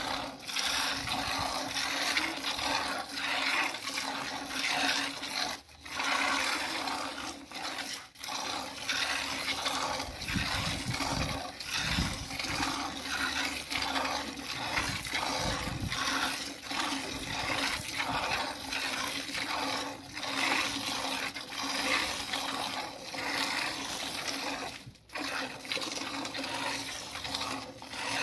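Cow being milked by hand: streams of milk squirting in a quick, even rhythm into a plastic bucket that already holds milk.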